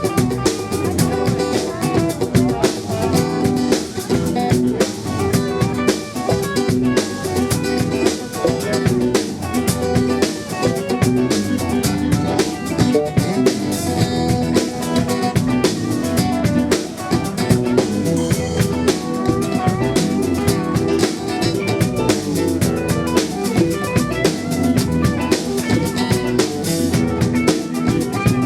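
A live band playing an instrumental passage: a drum kit keeping a steady beat under guitar.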